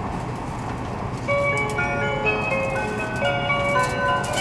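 Onboard announcement chime of an E7 series Shinkansen, a melody of clear bell-like notes that starts about a second in, over the steady rumble of the train running.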